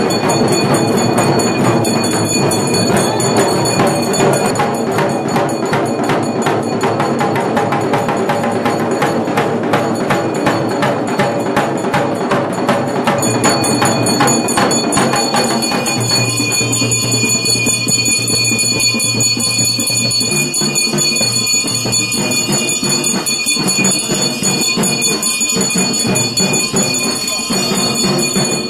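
Tamil temple procession music: fast, dense hand-drumming under a nadaswaram reed pipe, with bells ringing. The drumming thins out after about sixteen seconds, and a held low note comes in.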